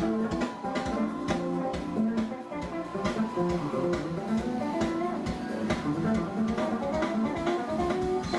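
Guitar-led music with bass and drum hits, played through a PA speaker system as a listening demo.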